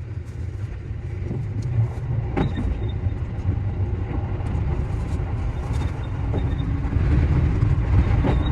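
JR Central 315 series electric train running, heard from on board: a steady low rumble of wheels on rail with a few sharp clicks, growing louder near the end.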